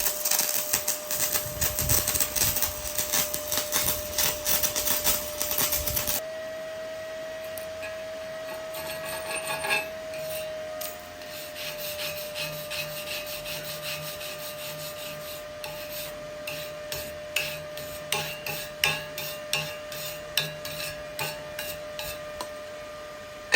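Stick-welding (SMAW) arc crackling and sputtering steadily, cut off abruptly about six seconds in as the arc is broken. After that a steady whine continues, with scraping and sharp metallic taps that come more often toward the end.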